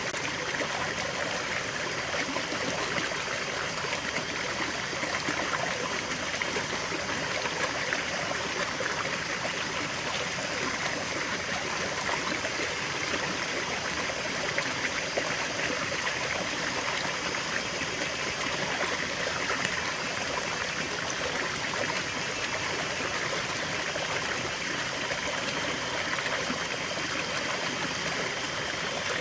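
Small stream of water flowing steadily, with a continuous babbling trickle.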